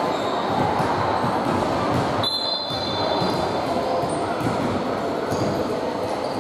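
Basketball court ambience in an echoing sports hall: a steady din of voices and movement, with a brief high whistle-like tone about two seconds in.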